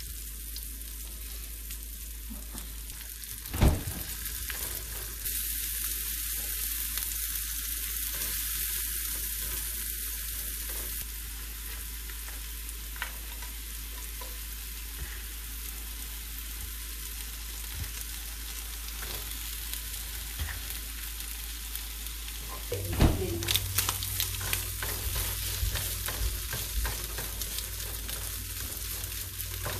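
Mushrooms and pieces of bacon and ham sizzling in a nonstick frying pan, a steady hiss. A single sharp knock comes about three and a half seconds in, and from about two-thirds of the way through, a spatula taps and scrapes the pan as the food is stirred.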